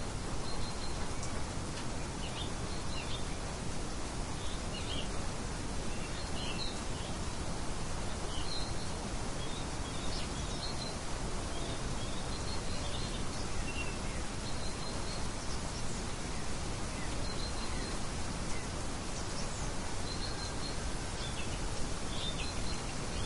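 Steady wind noise with small birds chirping: short, high chirps scattered through, several every few seconds.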